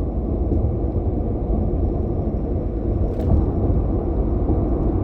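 A steady low rumble of noise with no speech, and a faint click about three seconds in.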